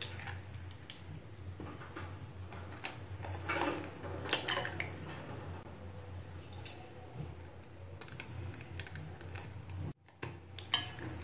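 Eggs being cracked into a glass bowl: a metal spoon tapping the eggshells, shells breaking, and scattered clinks against the glass, with a busier cluster of knocks about four seconds in. A steady low hum runs underneath.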